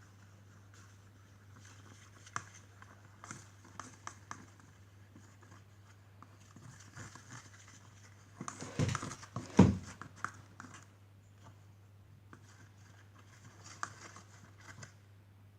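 Spoon stirring a thick glue-and-flour slime mix in a bowl: faint scraping and small clicks, with two louder knocks about nine and ten seconds in. A low steady hum runs underneath.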